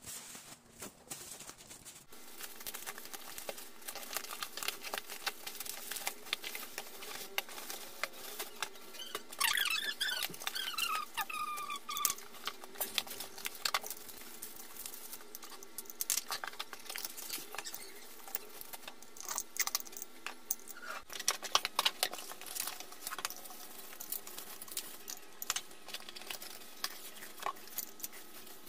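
Bubble wrap crinkling and crackling as it is handled and pulled off glass bottles, with irregular plastic clicks and taps and a squeaky rubbing sound about ten seconds in.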